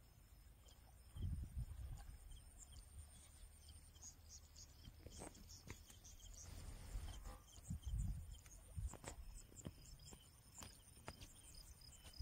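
Quiet outdoor riverbank ambience: low gusts of wind buffeting the microphone, with the strongest gusts about a second in and again around eight seconds. A few faint sharp clicks and light high-pitched chirping sit underneath.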